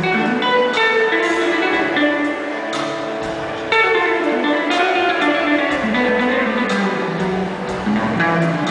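Live smooth-jazz instrumental: a hollow-body archtop electric guitar plays a picked lead line over keyboard backing, with a descending run of notes about halfway through.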